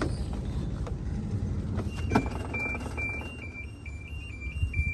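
Washing machine's electronic alert: a high beep stepping back and forth between two pitches, a few times a second, starting about two seconds in just after a click, over a low rumble. It signals the end of the wash cycle.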